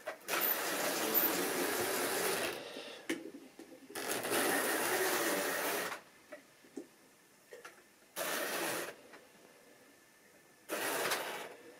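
Tri-ang model railway locomotive motor whirring and wheels running on the track in four short runs: two of about two seconds, then two briefer ones near the end. Small clicks fall in the gaps between runs.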